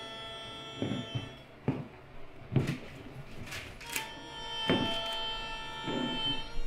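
Bowed electric violin holding long sustained notes, with a new note coming in about four seconds in. Several dull knocks and thuds land in between.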